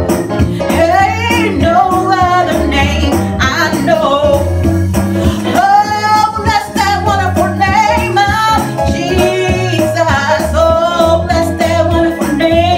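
A woman singing a gospel song into a handheld microphone over steady instrumental accompaniment.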